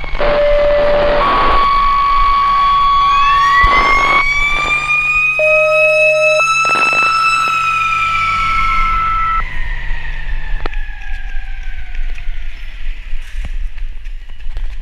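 Emergency vehicle sirens. A mechanical-type siren winds up about three seconds in, holds, then winds slowly down. Over it, steady high tones switch pitch several times during the first nine seconds.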